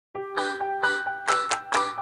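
Background music: a song opening with pitched notes struck in a steady beat, about two a second.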